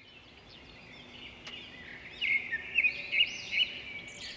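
Birds chirping: a fast series of short, rising and arching chirps that fades in and grows louder from about two seconds in.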